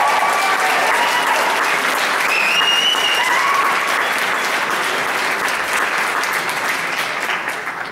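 Audience applauding, with a few shrill cheers in the first few seconds; the applause dies down over the last few seconds.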